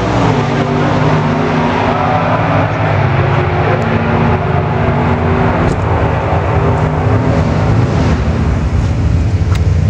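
Drag race Camaro's engine idling loudly and steadily, with a slightly uneven, wavering beat.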